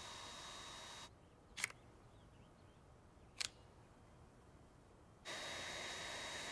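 Dyson V8 cordless stick vacuum running with a steady whir and a thin high tone, then switching off about a second in. Two sharp plastic clicks follow as the tools are swapped and the crevice tool is snapped onto the vacuum. The vacuum starts running again near the end.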